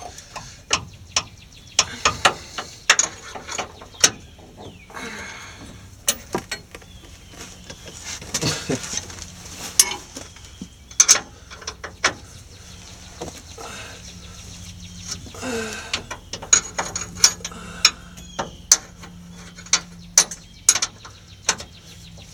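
Ratchet wrench and metal hand tools clicking and clinking while bolts of an air-bag suspension kit are worked: sharp, irregular strikes, some in quick runs. A faint steady hum comes in about halfway through.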